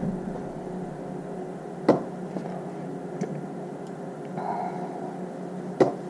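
Battery spot welder firing on its auto pulse: two sharp snaps about four seconds apart as it welds the cells of a battery pack, over a steady low hum.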